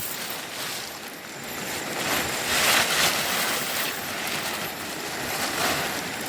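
Rushing river water, a steady hiss that swells louder for a second or so about two seconds in.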